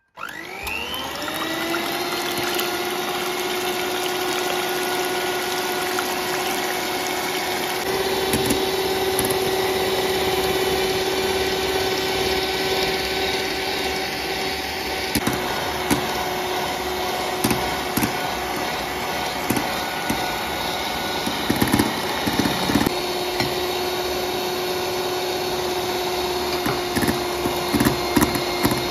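Electric hand mixer starting up with a rising whine, then running at a steady speed as its beaters whip egg whites into foam in a glass bowl. Occasional clicks and taps come through, more of them near the end.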